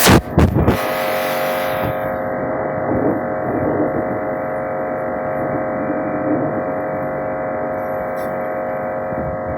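A few knocks and a hiss that dies away within the first two seconds, then an electric motor humming steadily on several fixed tones.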